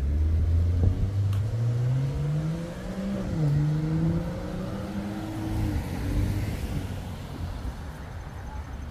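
A motor vehicle's engine accelerating on the street. It rises steadily in pitch, dips once about three and a half seconds in, climbs again, then fades as the vehicle moves off.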